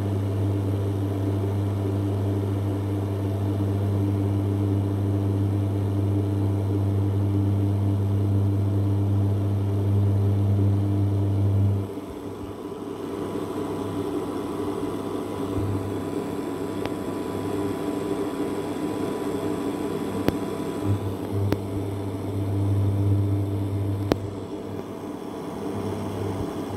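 Induction cooktop running at 2400 W under a stainless steel kettle of water: a steady low hum over the whir of its cooling fan. About twelve seconds in the hum drops away, then comes back in short spells, and a few sharp ticks sound in the second half.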